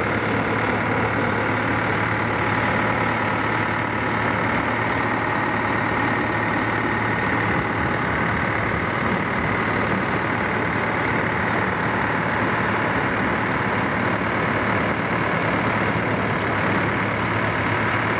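Heavy diesel engine running steadily with a constant low hum, most likely the workboat pushing the crane pontoon along the river.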